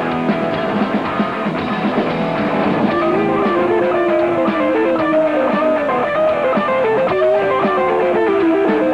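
Live rock band playing: strummed electric guitar over drums, with a held, bending melody line from about three seconds in.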